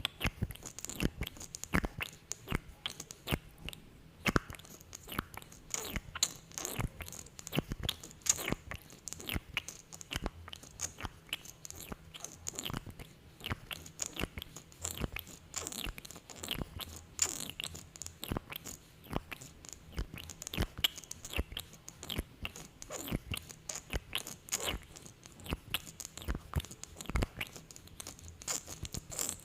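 Close-miked sticky mouth sounds from lips coated in lip gloss, smacking and pulling apart in a rapid, irregular stream of small wet clicks.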